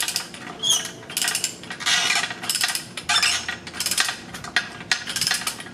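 Hand ratchet clicking in short repeated bursts as it winds the centre bolt of a three-jaw puller, pressing a rubber bushing out of a Mazda Miata lower control arm; the bushing is almost out.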